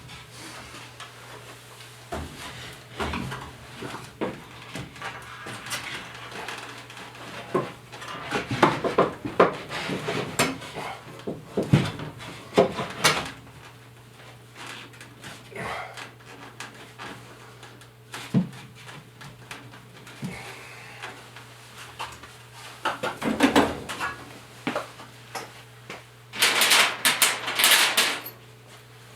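Irregular clicks, knocks and scrapes of hand work with a caulking gun of construction adhesive and a plywood piece against a floor joist, with a longer, louder scrape near the end. A steady low hum runs underneath.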